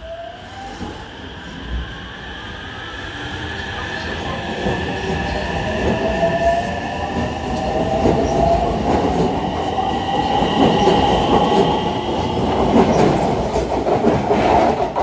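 JR West 225-series electric train pulling out of the platform: the whine of its traction motors rises in pitch as it accelerates, over the rumble of its wheels on the rails. It grows louder over the first several seconds as the cars pass close by.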